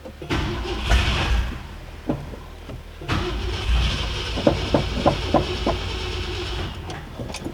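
1966 Ford Thunderbird's V8 being cranked by the starter in two tries, a short one and then a longer one, turning over without settling into running. The owner suspects it is out of gas.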